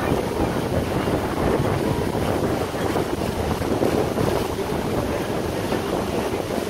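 Wind buffeting the microphone over the steady rush of a moving boat on open water, an even, unbroken noise with no distinct engine tone.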